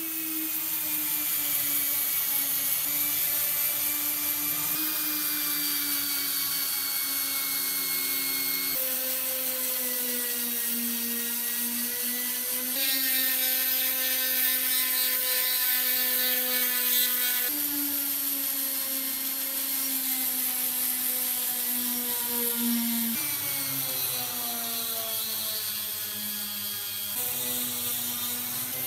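Small electric power tool motor running at high speed. Its hum sags slightly in pitch as it bears on the work, and jumps to a new pitch abruptly every four to five seconds.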